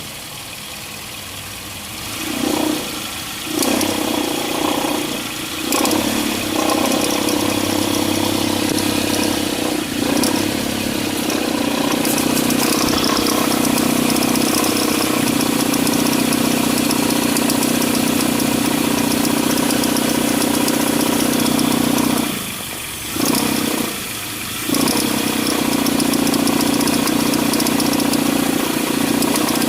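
Mitsubishi ASX engine running under throttle with a loud, steady drone from the vibrating accessory belt; the noise drops away briefly a few times, near the start and again about three quarters through. The belt vibration is the sign of a worn alternator overrunning-clutch pulley that no longer absorbs vibration.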